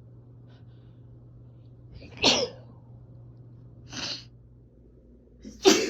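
A woman sneezing twice from a cold, about three and a half seconds apart, the second sneeze the loudest, with a shorter, softer breathy sound between them.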